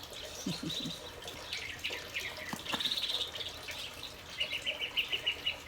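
Small songbirds chirping and trilling, ending in a quick run of repeated high chirps.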